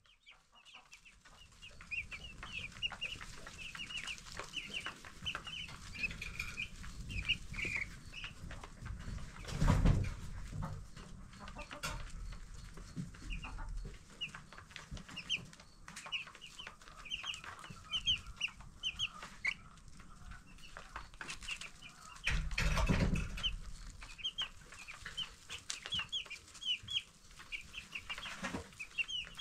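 A flock of ten-day-old broiler chicks peeping, with many short high chirps overlapping throughout. Two louder low rumbles come about ten seconds in and again past twenty seconds.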